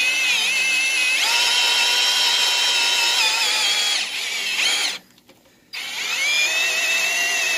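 Cordless drill running a 3/4-inch hole saw through thin-walled aluminium tube, a steady high-pitched whine of the cut. It stops for under a second about five seconds in, then starts again.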